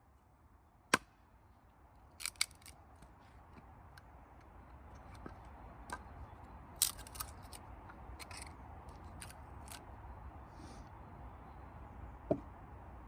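Scattered sharp knocks and clicks of hand-tool woodworking, a few loud single strikes with lighter ticks between, over a faint hiss that slowly grows.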